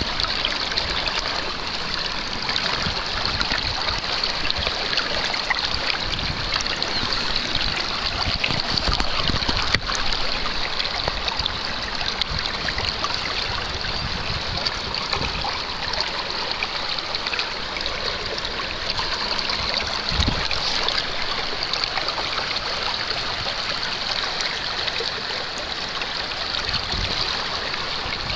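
Shallow river water running and trickling steadily, with a few brief low thumps from handling close to the water.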